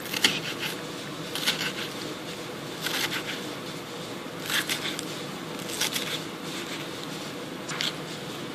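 Mini santoku knife dicing an onion on a cutting board: short bursts of cuts, about six of them, each a second or so apart.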